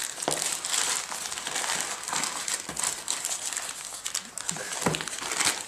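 Parcel packaging being unwrapped by hand, crinkling and crackling steadily with scattered sharp clicks.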